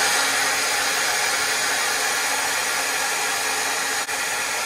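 A handheld hot-air blower runs steadily with a loud even rush of air and a faint motor hum, with a brief dip about four seconds in. It is blowing heat onto a lithium battery BMS's NTC temperature sensor to trigger the high-temperature charge cutoff.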